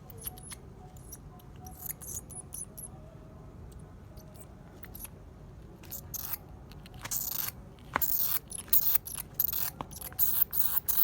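A live bat making rapid, short, high-pitched squeaks and clicks while it tries to bite and grab, sparse at first and coming thick and louder through the second half.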